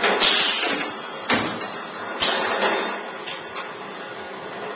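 Flash butt welding machine at work: a string of sudden bursts of hissing, crackling noise, each dying away within about half a second, three strong ones in the first two and a half seconds followed by two weaker ones.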